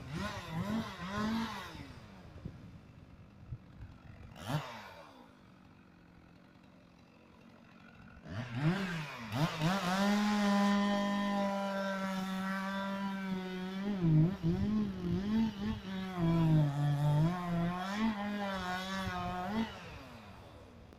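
Two-stroke chainsaw engine. It revs briefly at the start, then goes quiet, then runs at high revs for about ten seconds, its pitch sagging and recovering several times before it stops near the end.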